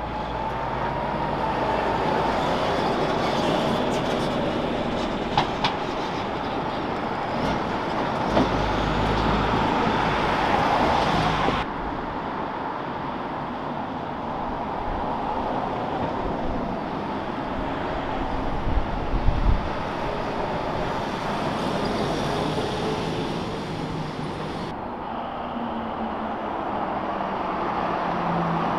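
Heavy road traffic passing, with the steady rumble of truck engines and tyres. The sound changes abruptly twice, about twelve seconds in and near the end.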